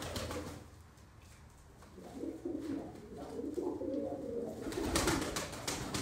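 Domestic Iraqi pigeons cooing, a low, wavering coo repeated from about two seconds in, with a brief rustling burst about five seconds in, the loudest moment.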